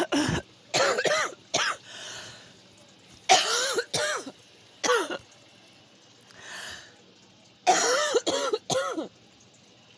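A person coughing in repeated bouts of short, harsh coughs, with the longest runs about three seconds in and near the end and quieter breaths between them. It is a reaction to breathing in smoke and fumes that fill the room.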